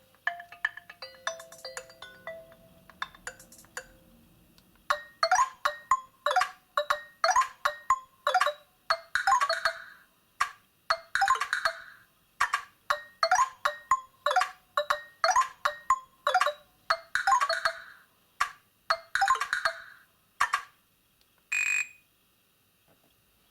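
Nokia 2720 Flip playing ringtones through its speaker. A short, quiet melody trails off, then a louder ringtone of quick, bright repeated notes plays for about fifteen seconds and stops, followed by a single short tone near the end.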